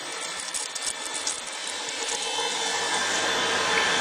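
Molybdenum-wire EDM machine cutting: a crackling hiss from the spark gap and coolant over a steady machine drone. The drone grows louder after about two and a half seconds.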